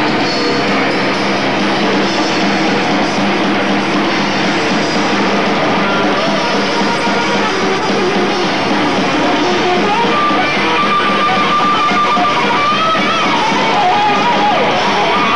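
Death metal band playing live, loud and dense: distorted electric guitars over a drum kit. About ten seconds in, a high sustained guitar line comes in and bends in pitch.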